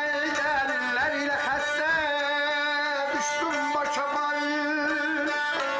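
A man singing a folk song in a wavering, ornamented melody while playing a saz, a long-necked lute, whose notes hold a steady low pitch under the voice.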